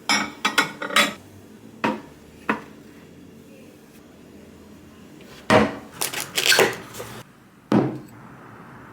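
New crockery being handled: plates and dishes knocking and clinking against each other and the table in a string of sharp clinks, a few at first, then a quick cluster of them after a pause, and one last one near the end.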